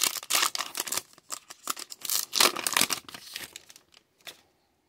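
The plastic wrapper of a Topps Big League baseball card pack is torn open by hand, crackling and crinkling in quick, uneven bursts for about three and a half seconds, then fading out.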